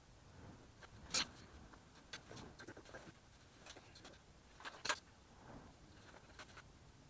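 A quiet garage with a few sharp clicks and taps of tools and parts being handled, the loudest about a second in and again near five seconds.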